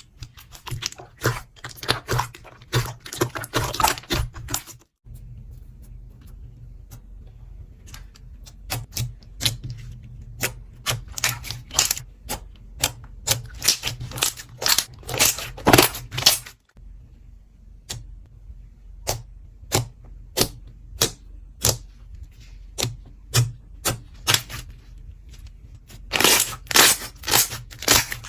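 Slime being worked by hand, giving runs of crisp clicks and crackles over a low hum. The sound breaks off abruptly twice and starts again.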